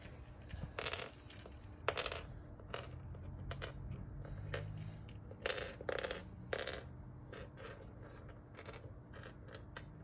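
Small hard ring-shaped dog treats set down one by one on a hardwood floor: a dozen or so light, irregularly spaced clicks and taps.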